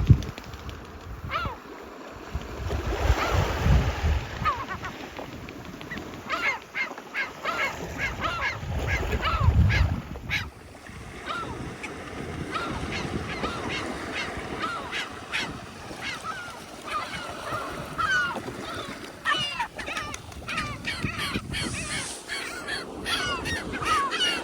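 A flock of birds calling over one another: many short, repeated calls, several a second, growing denser partway through. Low rumbling bursts come in the first half.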